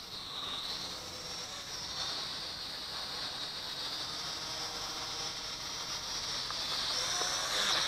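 Yu Xiang 668 Q8 toy quadcopter's motors and propellers whining high overhead, the pitch wavering up and down as the throttle changes.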